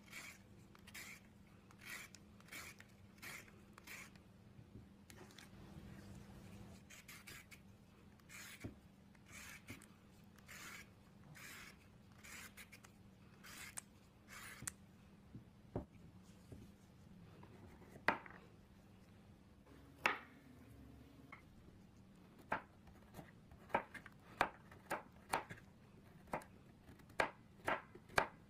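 A Y-peeler scraping strips of skin off a raw carrot in quick repeated strokes, about two a second. In the second half a knife slices the peeled carrot into rounds, each cut ending in a sharp knock on the bamboo cutting board, about two cuts a second.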